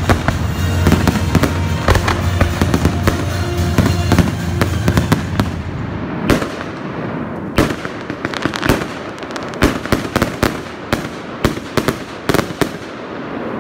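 Aerial fireworks shells bursting: dense, overlapping bangs and crackling over a low rumble for the first five seconds or so, then thinning to separate sharp bangs, a couple a second, that die away near the end.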